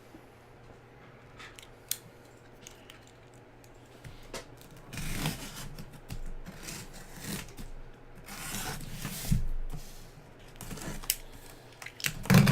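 Packaging on a case of trading-card boxes being cut and torn open: scraping, tearing and rustling with a few sharp clicks, mostly in the second half.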